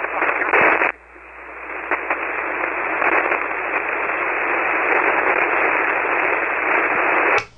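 Hiss of band noise from a ham radio receiver on single sideband, with no station transmitting. About a second in the hiss drops sharply, then slowly swells back up to a steady level.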